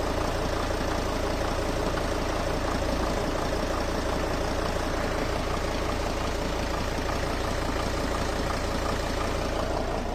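Sprinter van's diesel engine idling steadily with the clutch released. The dual-mass flywheel is not knocking at this moment, though a worn flywheel is the suspected cause of this engine's hunting idle.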